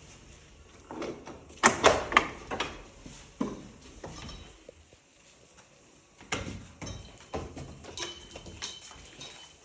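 Wooden double door being opened and handled: a string of irregular knocks and clicks from the door leaves and their metal fittings.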